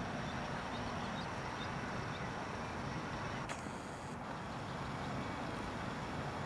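A few faint, short, high peeps from mallard ducklings in the first two seconds, over a steady background hum, with a brief click about three and a half seconds in.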